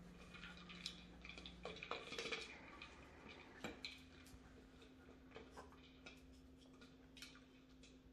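Faint, scattered light clicks and taps of small dogs' claws on a hardwood floor as they move about and sniff, over a faint steady hum.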